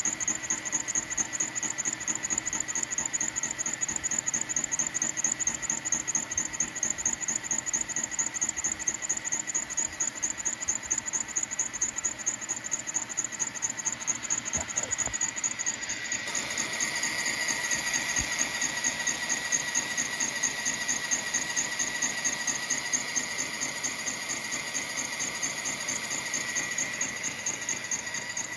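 Line boring machine turning its boring bar while a new cutting tool takes an intermittent cut through a pin hole in a steel excavator bracket: a steady high whine with a fast, even pulsing. The sound grows a little louder and brighter a little past halfway.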